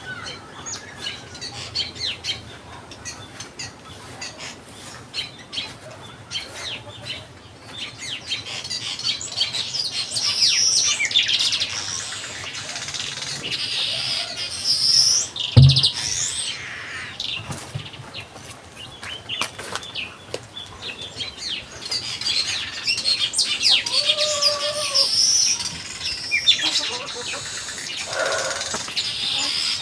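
Small birds chirping and twittering in quick high calls, with a thump about halfway through and a short lower call later on.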